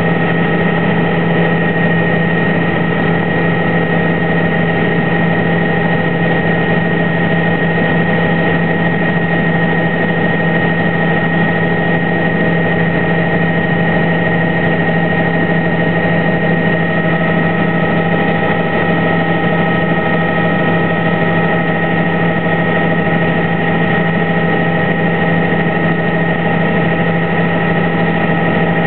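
Tour helicopter in flight, its engine and rotor running at a steady drone with a constant high whine over it.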